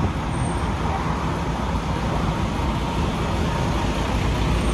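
Steady city street traffic noise: cars passing with a continuous low rumble and no single event standing out.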